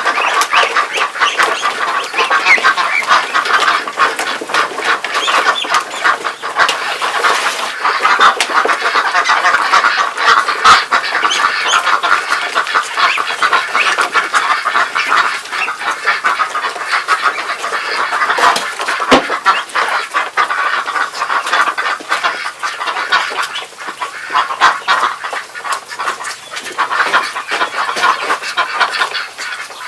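A flock of domestic ducks calling all at once at feeding time, a dense, continuous chatter of many overlapping quacks and calls with short clicks among them.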